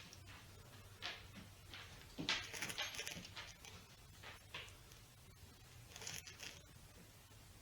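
Faint kitchen handling sounds: a few short scrapes and rustles, the loudest cluster about two to three seconds in and another about six seconds in, over a low steady hum.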